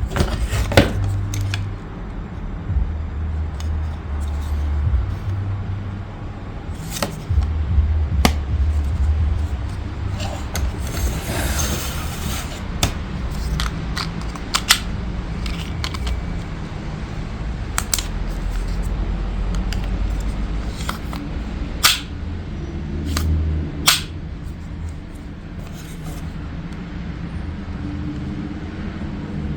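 Plastic toy car-track pieces clicking and knocking as they are handled, with a brief rustle near the middle, over a low steady hum.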